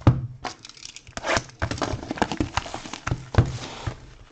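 Plastic wrap crinkling and tearing as a Topps Deco trading-card box is handled and opened, with a run of rustles and a few sharp knocks of the cardboard box, the loudest right at the start.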